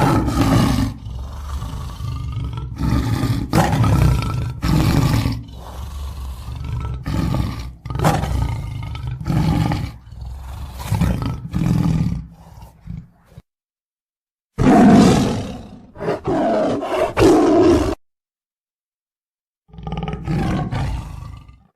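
Tigers roaring and growling: a long run of deep, rough, pulsing calls, then two separate shorter roaring bouts with dead silence before and between them.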